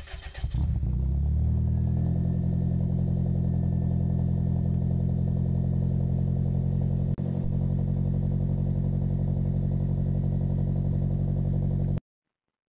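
Toyota AE92 Corolla's four-cylinder engine heard at the tailpipe, coming up within the first second or so and settling into a steady idle.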